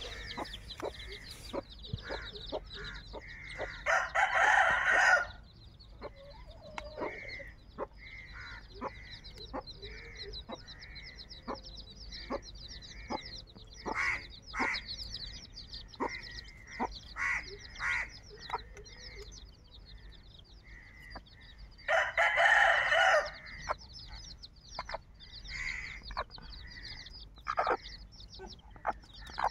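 A rooster crows twice, once a few seconds in and again about two-thirds of the way through, over the continual high peeping of a brood of chicks and the repeated calls of a hen.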